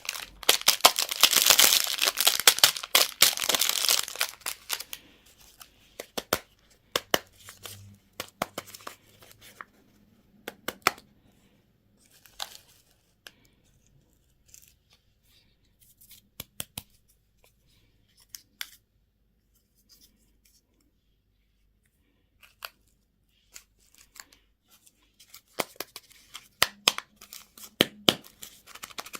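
Candy and toy packaging being torn open and crinkled by hand: a long, loud stretch of tearing and rustling in the first few seconds, then scattered crackles and clicks as the wrapping is handled, with another burst of crinkling near the end.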